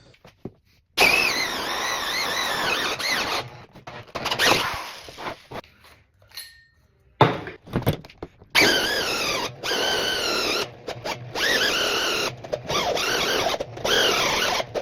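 A woodworking tool squealing as it works the wood: a high whine that wavers up and down in pitch. It comes in several separate stretches, each a second or two long, broken off by abrupt cuts.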